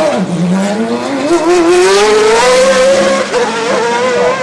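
Single-seater racing car's engine pulling away hard from the start. Its pitch drops sharply as it changes up, then climbs steadily for about three seconds and holds high, with small dips near the end.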